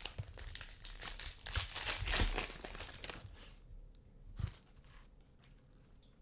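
A trading-card pack's foil wrapper being torn open and crinkled for about three and a half seconds, then a single knock about four and a half seconds in.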